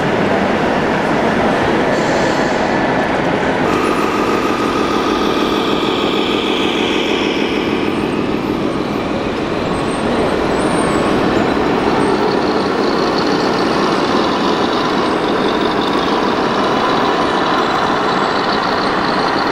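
Scale RC trucks running, with steady diesel-engine sound from their sound modules. The sound changes abruptly about four seconds in and again about ten seconds in.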